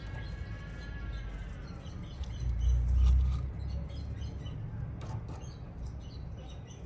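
Pet canaries chirping in short, scattered notes, with a low rumble about three seconds in that is the loudest sound.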